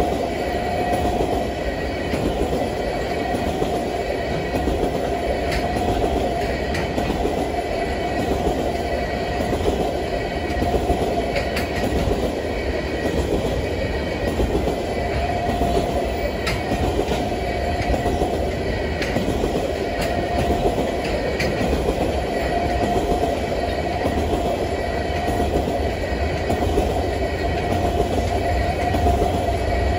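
Freight train tank cars rolling past: a steady rumble and clatter of steel wheels on the rails. A thin, steady ringing tone rides over it, with scattered faint clicks.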